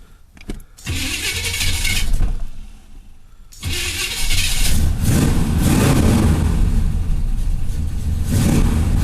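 A 400 small-block V8 in a Chevy Caprice being started with the key after a new ignition lock cylinder was fitted. After a few clicks, the starter cranks for about a second and stops. A second try about three and a half seconds in catches, and the engine settles into running with a loud exhaust note through Flowmaster mufflers, swelling briefly near the end.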